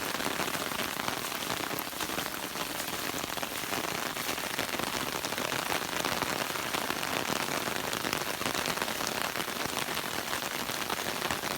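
Steady rain falling, a dense, even hiss made up of many individual drop hits.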